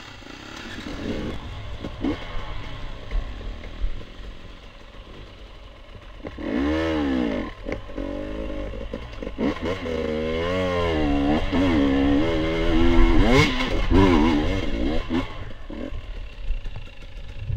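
Off-road motorcycle engine running low for several seconds, then revved hard over and over, its pitch rising and falling, as the bike is ridden at a steep, muddy slope with a run-up. The revving is loudest a little past the middle and dies back near the end.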